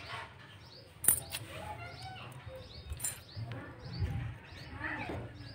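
A few sharp clicks of thin wooden sticks knocking on a tiled floor, the loudest about a second in, while small birds chirp over and over in the background.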